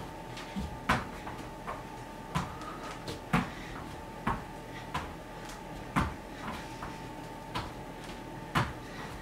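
Thuds and slaps of hands and bare feet landing on a yoga mat during burpees, a quick run of knocks with the loudest thump about every two and a half seconds.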